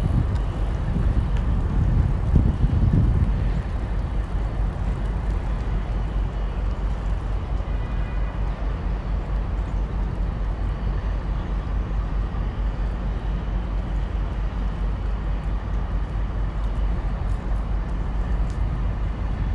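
Steady low rumble of background noise, a little louder and more uneven for the first few seconds.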